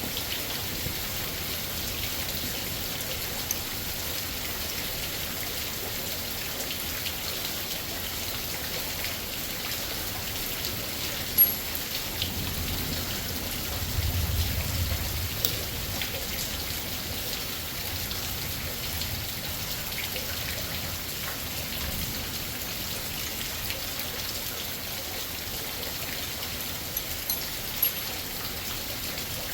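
Heavy rain pouring down, a steady hiss of rain on surfaces. A low rumble comes in about halfway through, and there are a few sharp clicks, the loudest a little before halfway.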